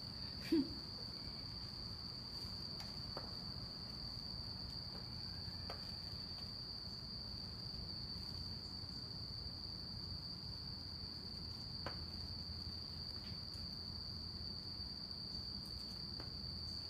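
Night-time insects singing: one steady, unbroken, high-pitched trill.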